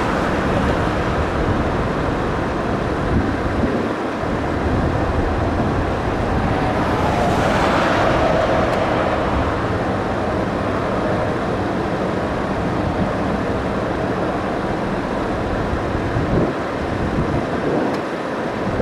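Steady rumble of a widebody twin-jet airliner on final approach, heard from a distance under wind noise on the microphone. A whoosh swells and fades about eight seconds in.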